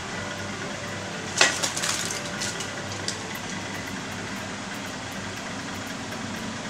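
An aluminium pot lid clatters down onto a foil-lined pot about a second and a half in, ringing briefly, followed by a few lighter knocks, over a steady background noise.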